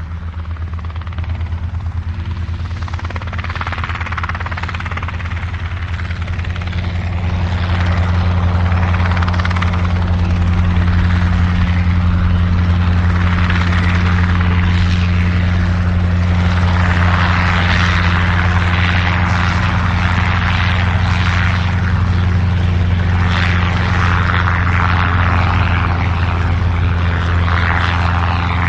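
Helicopter flying, heard from outside: the rotor's rapid, even chop over a steady low drone and a rushing engine noise that swells and fades. It grows louder over the first several seconds, then holds steady.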